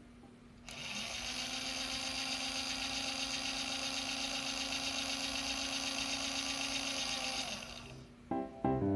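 Daiso toy mini washing machine's small electric motor running with a steady whine. It switches on about a second in and stops near the end.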